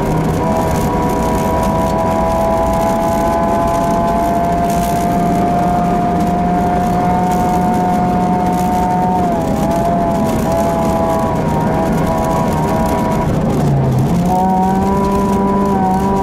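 Ford Fiesta 1.6 Sport's four-cylinder petrol engine running hard at steady revs, heard from inside the cabin over constant tyre noise on snow. The pitch climbs slowly, wavers about nine seconds in, then dips and jumps higher near the end, as with a downshift.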